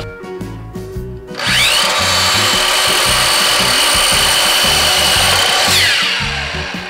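Makita slide compound miter saw: its motor spins up with a rising whine about a second and a half in, runs steadily as the blade cuts through a wooden board, then winds down with a falling whine near the end. Background music with a low beat plays underneath.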